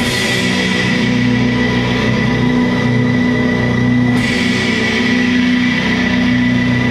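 Doom metal band playing live: heavily distorted guitars and bass holding low, slow chords, with a steady high tone riding above. A cymbal crash lands at the start and another about four seconds in, each washing out slowly.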